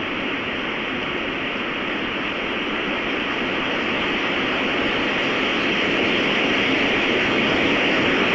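Strong storm wind blowing, a steady rushing noise that grows gradually louder.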